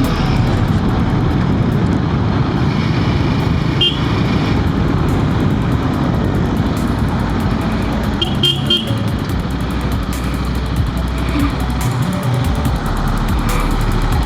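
Royal Enfield Himalayan 450's 452 cc single-cylinder engine running under way, with steady wind and road noise on the rider's helmet mic. Short vehicle-horn toots from traffic come about four seconds in and again around eight seconds in.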